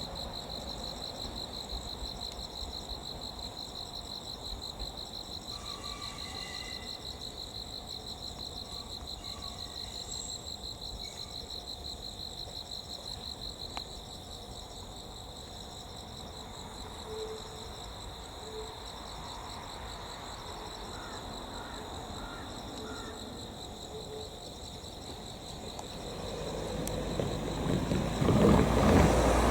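Insects trilling in a steady, pulsing high tone that fades about halfway through. Over the last few seconds an electric train approaches, its rumble rising until it is loud.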